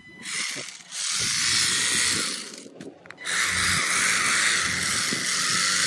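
WLtoys 284161 RC car's electric motor and drivetrain whining at high speed as the wheels spin freely with the car held in the hand. It runs in two bursts: about two seconds, then after a brief pause a longer, steady run.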